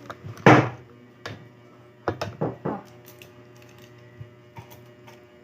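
Tableware clattering during a meal: a loud sharp knock about half a second in, another just over a second in, then a quick run of four knocks around two seconds in, with a few faint clicks after.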